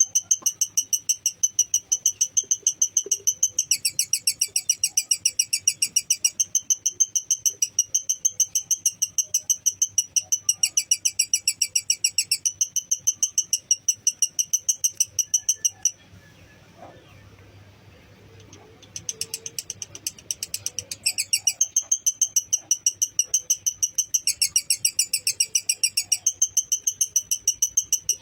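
Lovebird's long 'ngekek' chatter: a rapid, even string of shrill chirps that shifts slightly in pitch now and then. About sixteen seconds in it stops for roughly three seconds, then starts up again.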